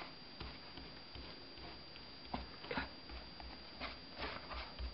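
Spatula pressing and scraping sticky marshmallow-coated Rice Krispies across a metal cake pan: faint, with a few short scraping strokes from about halfway through.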